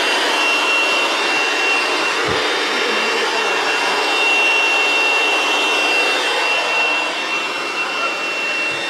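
Electric air pump inflating a snow tube: a steady whirring rush with a constant high whine.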